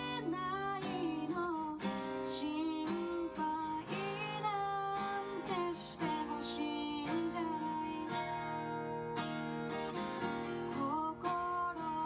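Background music: a song with acoustic guitar and a singing voice.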